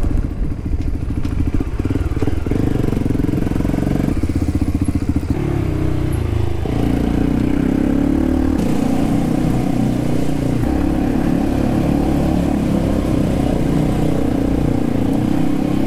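Motorcycle engine running while under way. Its pitch shifts up and down over the first several seconds, then it runs steadily from about seven seconds in.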